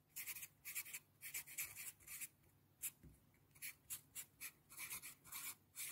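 Felt-tip marker writing on paper: a run of short, faint scratchy strokes as the tip forms each letter.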